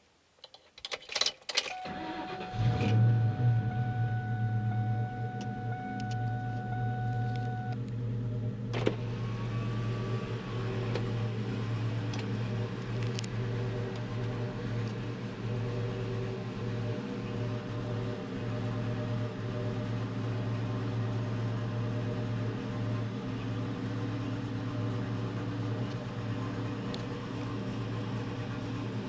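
A 2002 Ford Mustang GT's 4.6-litre V8 starts after a few clicks and settles into a steady idle. The engine is misfiring and idling rough, which the owner puts down to cylinder 3 after a thread insert was fitted there.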